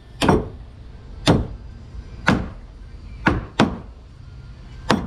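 Hammer blows driving nails through a wooden hull plank into the schooner's frames: six sharp strikes, roughly one a second, two of them in quick succession a little past halfway.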